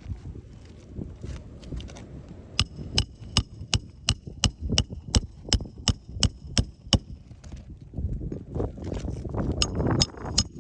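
Hammer driving roofing nails into an asphalt shingle: a run of about thirteen quick, evenly spaced metallic strikes, roughly three a second, then a few more strikes near the end, with scraping handling noise in between.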